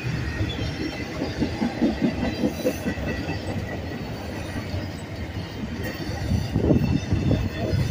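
Union Pacific double-stack container train's well cars rolling past close by: a steady rumble with rapid clacking of wheels over the rail joints, a little louder from about six seconds in.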